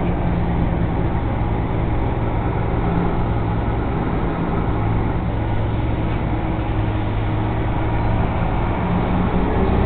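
Semi-truck's diesel engine running steadily as heard inside the cab, a steady drone with road and cab noise, as the truck creeps forward in slow traffic.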